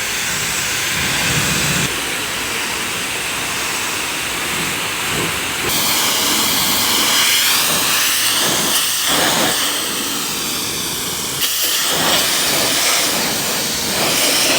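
Giraffe Tools Grand Falls pressure washer spraying a high-pressure jet of water onto a car. The loud, steady hiss changes in tone a few times as the spray moves over different surfaces.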